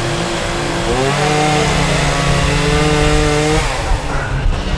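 Chainsaw engine revved up about a second in, held at high speed, then dropping back near the end.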